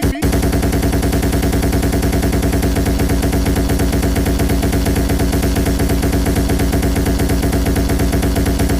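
A loud, fast, even rattle of pulses, more than ten a second, over a steady low hum.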